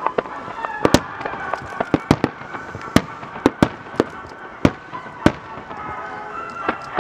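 Fireworks popping and crackling: about fifteen sharp cracks at irregular intervals, over a steady wash of background sound.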